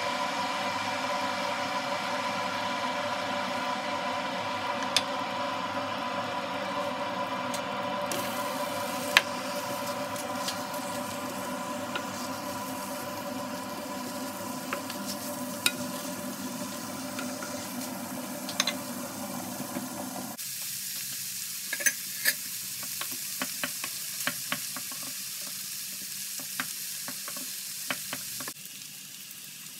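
Sliced onions frying in butter in a nonstick pan, sizzling as they are stirred with a wooden spatula that clicks and scrapes against the pan now and then. A steady hum runs underneath and stops suddenly about two-thirds of the way through.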